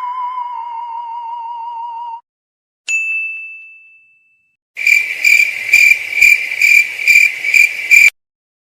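Sound-effect sequence: a steady, slightly wavering electronic tone that cuts off about two seconds in, then a single bell-like ding that rings out, then cricket chirping, a pulsed high chirp repeating about three times a second for some three seconds before stopping abruptly.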